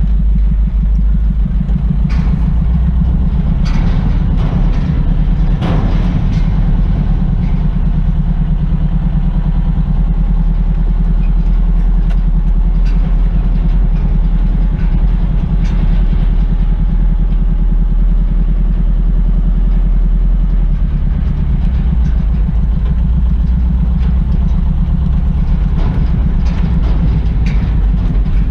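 Truck engine running steadily with a low, pulsing note, its low end growing stronger a little past two-thirds of the way through. A few short knocks and rattles sound over it.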